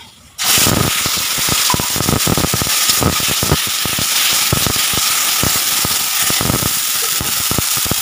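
Wet onion, green chilli, ginger and garlic paste dropped into hot oil in a kadai, starting suddenly about half a second in and then sizzling loudly and steadily with dense spattering crackles as it is stirred.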